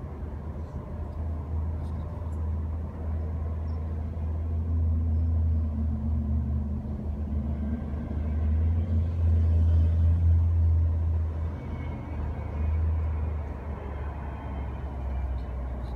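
Steady low mechanical rumble, swelling to its loudest about two-thirds of the way through, then easing.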